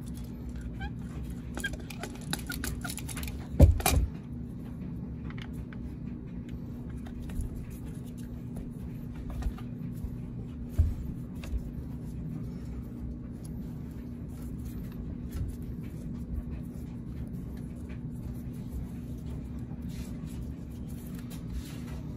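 Small plastic clicks and one sharp knock about four seconds in, with a smaller knock near eleven seconds, as the distributor cap and spark plug wires are handled, over a steady low hum.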